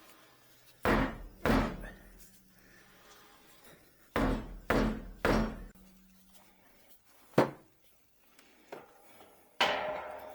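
Sledgehammer blows on a car wheel stuck to a rusted hub, striking to break it loose: seven sharp strikes in uneven groups, two, then three, then two single blows, each with a short ringing tail.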